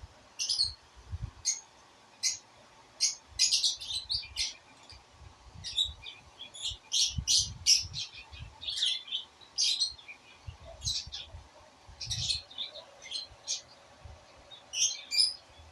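Small birds chirping and tweeting: many short, high calls in quick clusters, starting about half a second in, with faint low thumps underneath.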